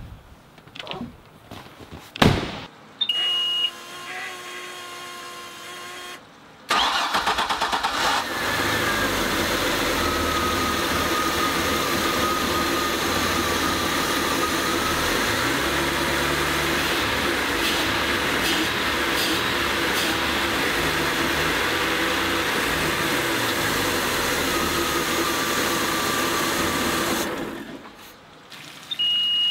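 MerCruiser 4.3-litre MPI V6 sterndrive engine started and run: a thump about two seconds in, a short beep as the ignition comes on, then about seven seconds in the engine cranks and starts, running steadily for about twenty seconds before it stops, followed by another short beep.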